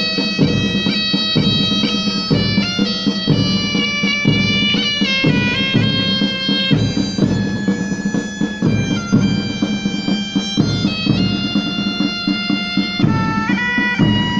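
Pipe band playing a march: a bagpipe melody over a steady drone, with a regular drum beat.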